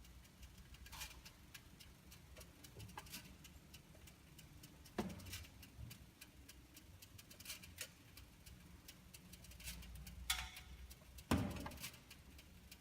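Irregular clicks and rattling ticks from a switched-off BMW E46 320i, the strange noise it makes after shutdown. They come at uneven intervals over a faint low hum, with the sharpest clicks about five seconds in and twice near the end.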